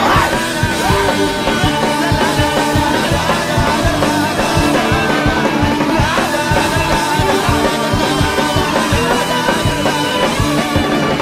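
Loud, fast rock music with a dense, driving drum beat under a steady melody.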